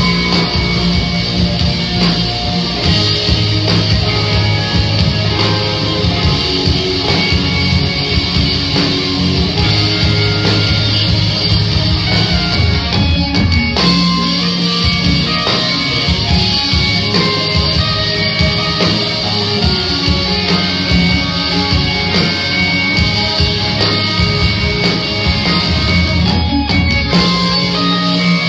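Rock band playing live and loud, guitar-driven with bass and drums, heard through the venue's PA from among the audience.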